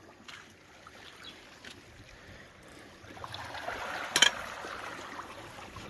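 Sea water washing and sloshing against the rocks, swelling about three seconds in, with one sharp knock just after four seconds.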